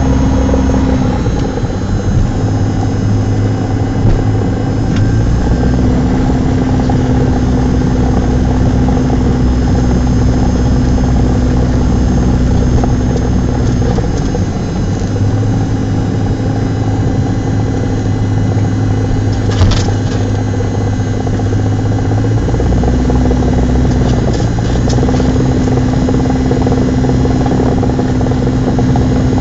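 Cessna 172's piston engine and propeller running at low taxi power, heard from inside the cabin. The engine note dips briefly and recovers a few times, and a single sharp click comes a little past the middle.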